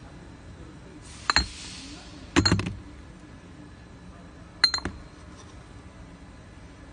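Brown glass bottles clinking against each other as they are lifted and moved in a cardboard box. There are three separate clinks: one about a second and a half in, a quick rattle of several knocks about two and a half seconds in (the loudest), and a double clink near five seconds.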